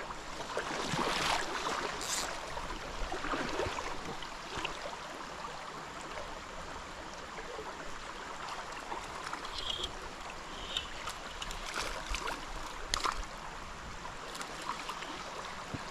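Shallow river riffle running over rocks: a steady rush of flowing water, with a few sharp clicks, one about two seconds in and another near thirteen seconds.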